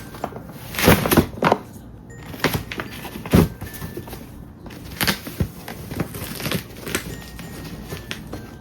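Handling noise from an infant car seat: a series of clicks and knocks with fabric rustling in between, the heaviest knocks about a second in and about three and a half seconds in.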